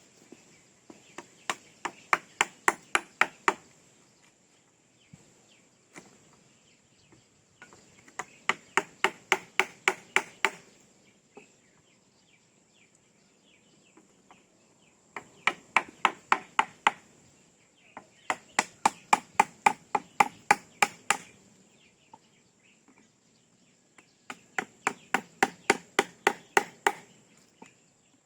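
Hammer driving nails into wood: five runs of quick blows, each run of about a dozen strikes growing louder as it goes.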